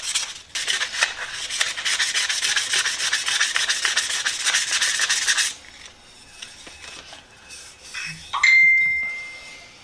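Fine-grit sandpaper rubbed in quick back-and-forth strokes over a varnished brass oiler canister, stopping about five and a half seconds in. Near the end a sudden metallic ding rings on as a single high tone and fades.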